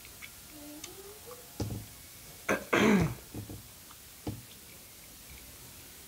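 Bite into a crisp fried egg roll: one loud crunch about two and a half seconds in, followed by a few smaller crunches of chewing.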